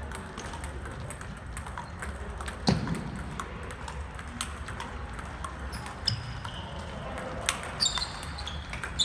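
Table tennis balls clicking off bats and tables across a gym hall, with one louder thud about a third of the way in. Sneakers squeak on the wooden floor a few times in the second half as players move.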